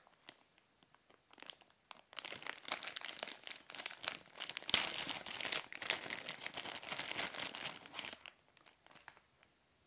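Product packaging being opened by hand: a dense run of crinkling and rustling from about two seconds in until about eight seconds in, with only a few faint ticks before it.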